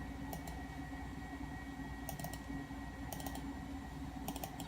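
Computer mouse button clicked in quick double-clicks, four times, as folders are opened on a Macintosh Classic, over a steady low hum from the computer.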